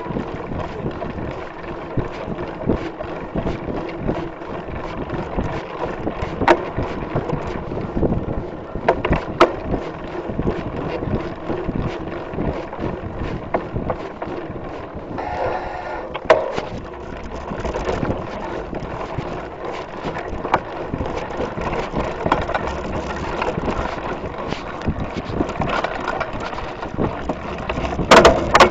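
Mountain bike riding over a bumpy dirt singletrack, heard from a camera mounted on the bike: steady rattling and clattering of the bike and tyres over the trail, with wind on the microphone. Sharper knocks come now and then as the bike hits bumps, the loudest cluster near the end.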